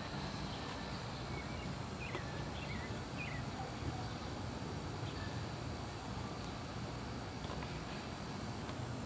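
Outdoor ambience: steady background noise with insects chirping in a faint, regular high pulse, and a few short chirps about two to three seconds in.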